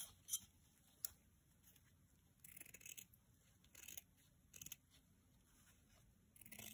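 Scissors cutting through fabric in several short, quiet snips, spaced irregularly, trimming the edge of stitched cloth.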